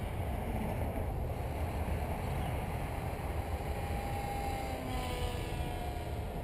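Wind rumbling on the microphone, with the thin whine of a small RC plane's motor and propeller (an Air Hogs foam glider converted to radio control) coming in about four seconds in and dropping in pitch as the plane passes.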